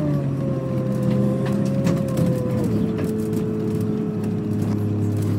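Double-decker bus heard from inside the cabin: steady engine rumble under a drivetrain whine that falls gradually as the bus slows, steps down about halfway through, then holds steady, with a few faint clicks.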